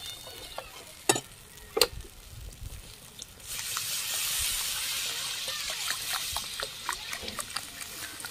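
A metal spatula knocks twice against a metal karai. Then water is poured from a bottle into the hot fried masala and oil, which hisses steadily for about four seconds as the water hits it.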